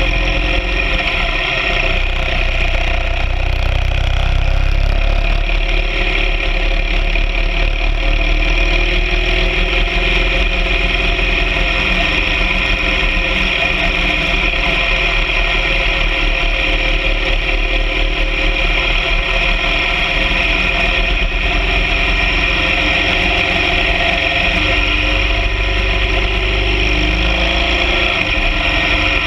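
BMW R 1200 GS Adventure sidecar rig's boxer-twin engine running at a steady pace while riding, its pitch holding nearly even, with a steady low rumble beneath.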